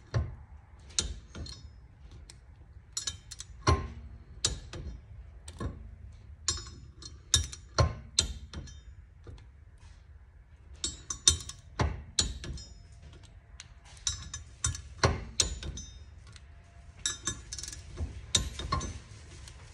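Click-type torque wrench tightening the bolts of a brake rotor onto its hub, giving short groups of sharp metal clicks at uneven intervals as each bolt reaches its set torque.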